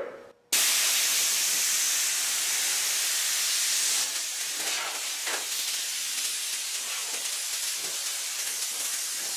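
Compressed shop air hissing from an air hose blown across a sanded bare-steel car hood to evaporate degreaser. It starts abruptly about half a second in and eases slightly about four seconds in.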